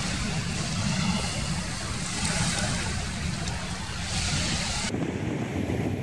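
Sea surf washing onto the beach, with wind rumbling on the microphone. The surf swells twice, then its hiss cuts off suddenly near the end, leaving mostly low wind rumble.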